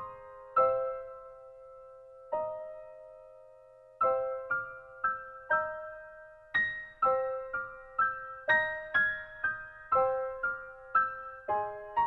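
Background piano music: a slow melody of single ringing notes, about two a second, with a lull about a second in before the notes pick up again.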